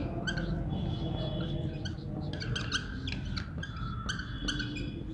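Marker squeaking on a whiteboard in many short strokes as words are written.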